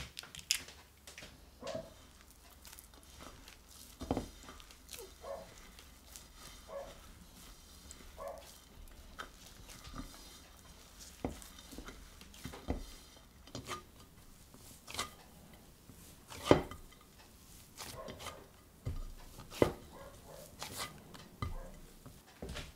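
Hands kneading crumbly cheese-and-butter pastry dough with an egg yolk in a ceramic bowl: soft pressing and crumbling of the dough with irregular taps and knocks of fingers and dough against the bowl, the loudest knocks about 16 and 20 seconds in.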